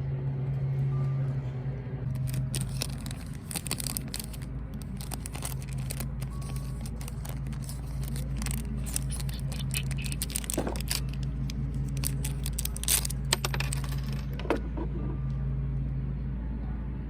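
Scattered light metallic clinks and taps from handling the steel oil drain plug and its crush washer, over a steady low hum.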